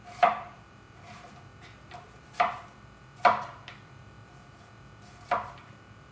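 Chef's knife slicing an onion on a prep chopping mat: four sharp knocks of the blade meeting the mat at uneven intervals, with fainter cuts between them.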